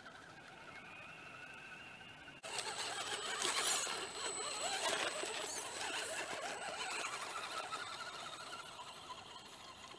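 RC scale crawler with an FJ45 Land Cruiser body on an SCX10 chassis, climbing at close range: its electric motor and gears whine while the tyres spin and scrabble through loose dirt and gravel. The sound comes in suddenly about two and a half seconds in and eases off toward the end; before that only a faint, thin whine is heard.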